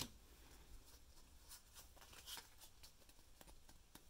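Near silence with faint, scattered clicks and rustles of Pokémon trading cards being handled and slid through the hands, with a slightly louder click at the start.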